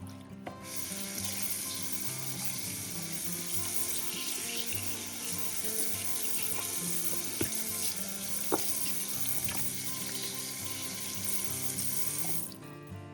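Kitchen tap running steadily, turned on about half a second in and shut off near the end, with background music underneath.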